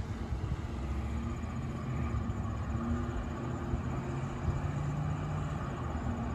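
A motor vehicle engine running: a steady low rumble with a faint hum that shifts slightly in pitch.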